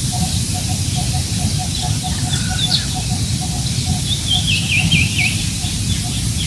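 Wind rumbling on the microphone while birds call: one repeats a short low note about three times a second, and another gives scattered high chirps, then a quick run of downward-sweeping notes about four seconds in.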